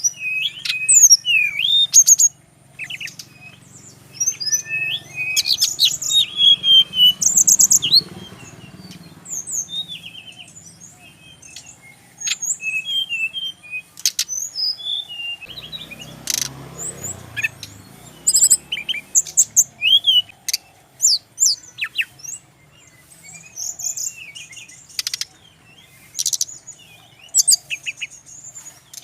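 Jungle flycatcher (sikatan rimba) song: a dense run of varied short chirps, whistled glides and rapid trills, with many phrases following one another closely. A brief low rumble sounds about halfway through.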